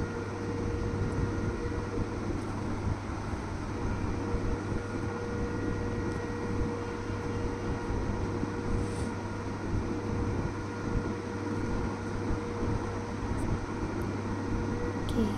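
Steady background hum and hiss with a low drone and a few faint constant tones, like a running fan or air conditioner; no distinct pencil strokes stand out.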